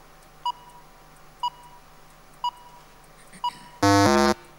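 Quiz countdown timer beeping once a second, four short steady-pitched beeps, then a loud two-part electronic time-up buzzer near the end, the second part lower in pitch, signalling that the contestant's answer time has run out.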